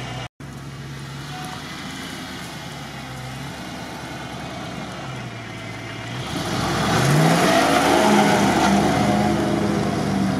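First-generation Land Rover Discovery's V8 idling steadily, then revving up about six seconds in, its pitch rising and holding high under load as it powers up a steep sand slope, with a hiss of tyres churning sand.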